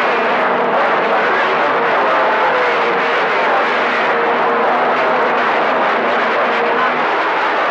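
CB radio receiver on channel 28 (27.285 MHz) putting out a steady hiss of static, with short whistling tones from distant skip signals buried in it.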